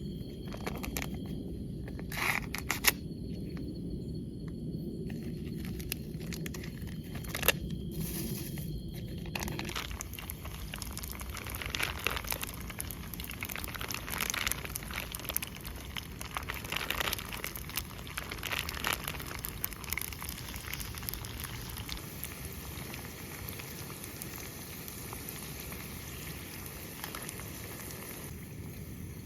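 Camp cooking sounds: crackling and crinkling with scattered small ticks. A low steady hiss stops abruptly about ten seconds in, and a few sharp clicks sound before that.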